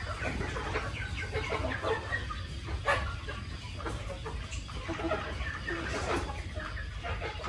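A flock of chickens clucking and calling, many short calls overlapping, with a couple of louder, sharper calls about three and six seconds in.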